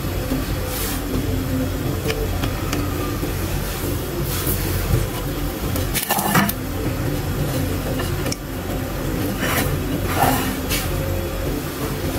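A steady low hum throughout, with a few brief rustles and knocks as folded flatbread pieces are handled and set into a glass dish, the loudest about halfway through.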